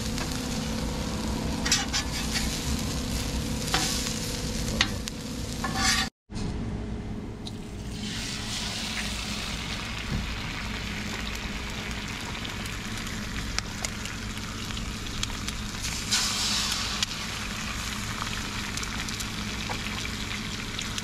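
Food sizzling on a propane flat-top griddle: shredded hash browns frying while a metal spatula scrapes and turns them a few times, then eggs frying with a steady sizzle that briefly gets louder about two-thirds of the way through.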